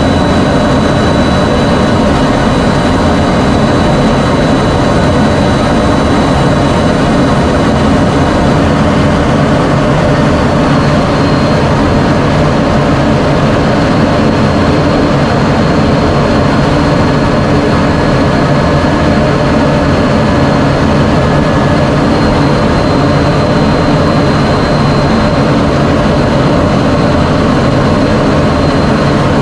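F-16 Fighting Falcon's single jet engine running steadily, a loud, even rush with a thin high whine held over it.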